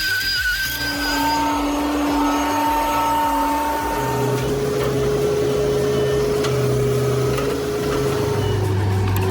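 Heavy machinery, such as a skid steer or excavator, with its engine and hydraulics running under work. There is a steady whining hum whose pitch shifts in steps about a second in and again about four seconds in.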